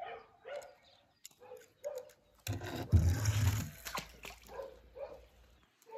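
A small die-cast toy car dropping into a swimming pool with a splash, the loudest sound, about halfway through. Faint short clicks and small sounds come before and after it.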